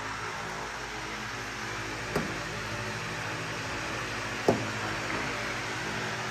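A fan running steadily with a constant whir and hum, with two short sharp knocks, one about two seconds in and another about halfway through.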